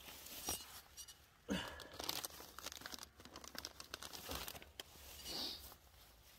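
Crinkling and rustling of discarded plastic litter being picked up and handled, in several short crackly bouts.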